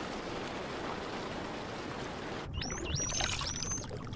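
Underwater hiss, then from about two and a half seconds in, dolphins whistling: several high rising glides, with a fine rapid clicking of echolocation.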